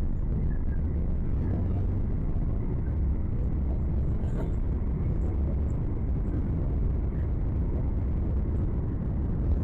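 Steady low rumble of a jet airliner heard from inside the cabin: engine and airflow noise, even throughout, with a faint high hum above it.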